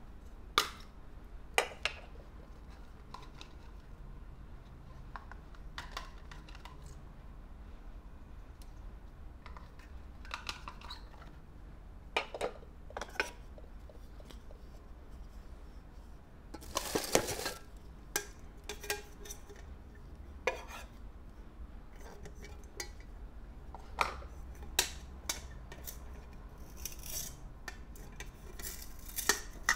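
Pieces of an aluminium camping cookware set handled and knocked together: scattered light knocks and clinks as pots, bowls, a spoon and a bamboo spatula are picked up and set down, with a longer scraping rattle about halfway through and a run of small clinks near the end.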